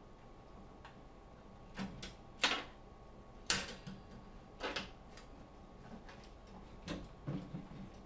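Irregular sharp clicks and light knocks from a remote bird launcher's metal frame and launch arm being handled, about half a dozen spread unevenly, with the louder ones in the first half.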